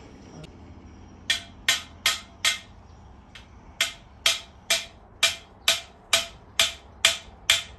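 Hammer blows on the top of a garden stake, driving it into the soil: thirteen sharp ringing strikes, four at first and then, after a short pause, nine more at about two a second.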